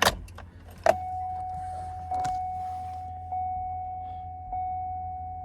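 A couple of sharp clicks from the ignition key being turned, then the 2007 Cadillac Escalade's warning chime sounding repeatedly, each steady tone fading before the next strikes about every second and a bit. The chime sounds while the engine does not crank, part of the no-start, no-crank fault.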